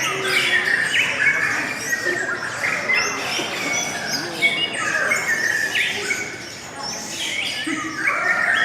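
Lovebird singing: a continuous chatter of rapid chirps, twitters and harsh squawks.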